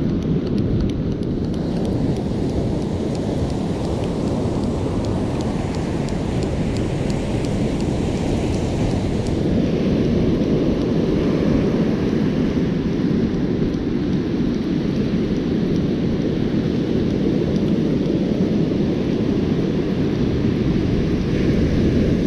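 Ocean surf breaking on a beach, with wind buffeting the microphone: a steady, heavy rushing noise with a deep rumble underneath.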